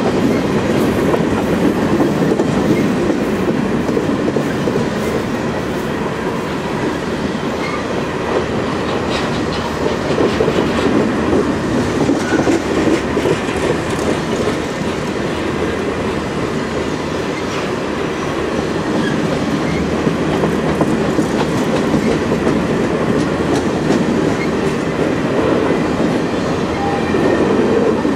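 Freight cars (covered hoppers and tank cars) of a long train rolling past on steel rail: a steady rumble of wheels on track with light clicks from the wheels.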